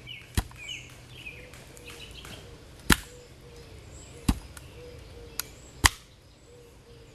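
Five sharp, uneven blows struck into firewood as it is chopped or split, with birds chirping faintly behind.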